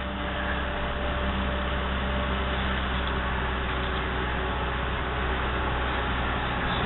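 Excavator's diesel engine running steadily while working: a constant low hum with an even noisy haze over it.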